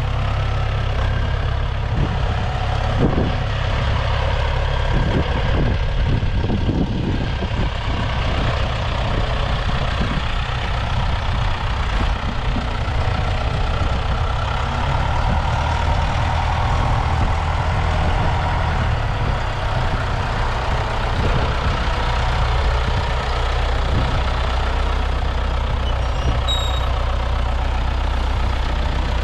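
John Deere 6410 tractor's diesel engine running steadily, with scattered knocks and clunks in the first ten seconds or so.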